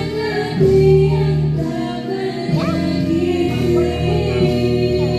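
Background music with singing: held sung notes over a steady accompaniment.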